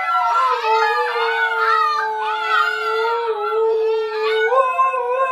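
Husky puppies and an adult husky howling together in a chorus. Many high, wavering howls overlap one long, steady lower howl.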